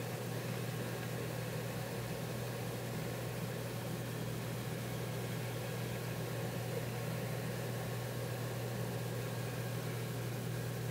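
A steady low hum with a constant hiss underneath, unchanging throughout.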